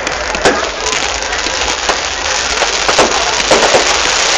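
Fireworks bursting and crackling: a sharp bang about half a second in, then a dense run of short cracks and pops that grows busier towards the end.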